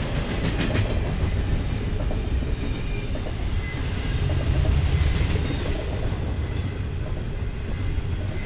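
Double-stack container train's well cars rolling past, a steady low rumble of steel wheels on rail with a few clicks and a short high squeal about six and a half seconds in.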